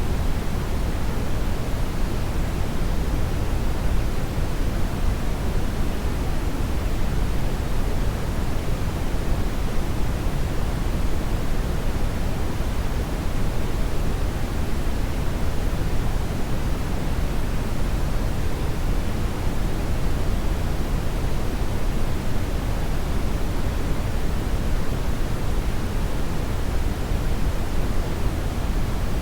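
Hair dryer blowing steadily: a constant, even rush of air, fullest in the low end, that never changes.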